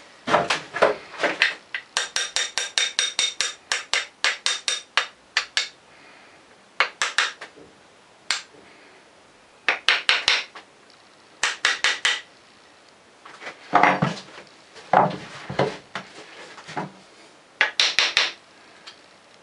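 Light hammer taps on a wooden hand plane, setting the depth of its blade. A quick run of taps early on, some ringing briefly, then short groups of taps with pauses between them.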